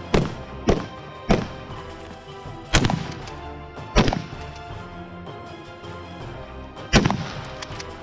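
Rifle shots fired one at a time at an irregular pace, six in all: three close together in the first second and a half, then three more spaced out, each with a short echoing tail. Background music plays underneath throughout.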